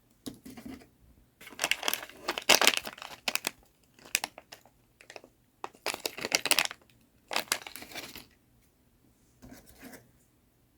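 Keyboard packaging being handled and opened: crinkling and tearing of wrapping in a series of bursts with short pauses between them.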